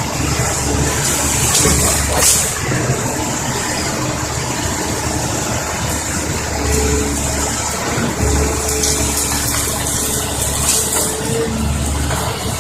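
Caterpillar 320D tracked excavator running, its diesel engine rumbling steadily with short whining tones that come and go and swells in level around two-thirds of the way through and again near the end.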